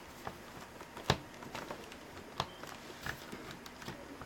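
Faint, scattered clicks and knocks of a laptop's plastic casing being handled as the screen assembly is pulled at. About six sharp ticks, the loudest about a second in; the screen does not come free.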